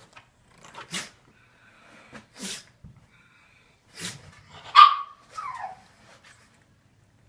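A pug sneezing repeatedly: short, sharp, noisy bursts about every second or two. The loudest comes near the five-second mark and has a falling pitched tail, with a second falling sound just after it.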